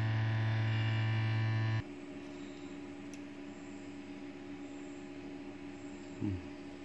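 Loud steady electrical mains hum with a buzzy edge that stops abruptly about two seconds in, leaving a fainter, lower hum.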